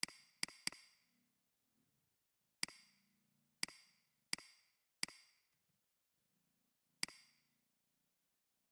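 Computer mouse clicking: eight sharp single clicks at uneven spacing, three in quick succession at the start and then five more spread over the next several seconds.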